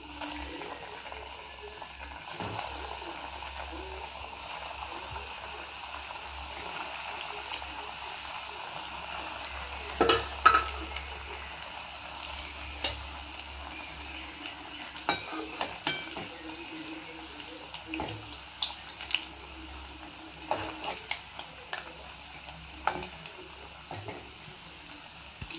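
Breaded chicken pieces deep-frying in hot oil in an aluminium pan: a steady sizzle with scattered sharp clicks and taps, the loudest about ten seconds in.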